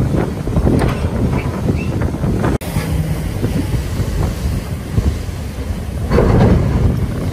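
Rough sea and waves breaking against the hull of a stranded cargo ship, with wind rumbling on the microphone. The sound drops out for an instant about two and a half seconds in. The rush of water surges louder near the end.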